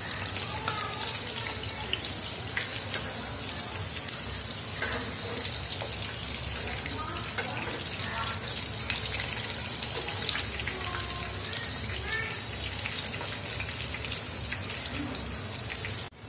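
Oat-crumbed chicken pieces deep-frying in hot oil: a steady sizzle with dense fine crackling. It cuts off suddenly at the very end.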